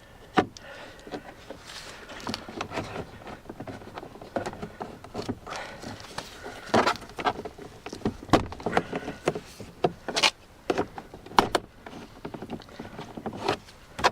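Plastic door trim around a car's window switch being prised out: a long string of irregular sharp cracks and snaps of stiff plastic clips, some of it breaking, the loudest snaps in the second half.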